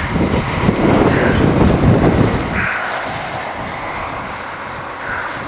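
Wind buffeting the microphone in gusts: a heavy, uneven rumble for the first couple of seconds, then easing to a lighter rush.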